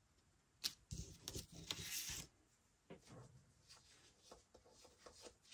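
Light handling noises of stamping and paper work: a sharp click about half a second in, then about a second and a half of rustling with light taps, then faint scattered ticks.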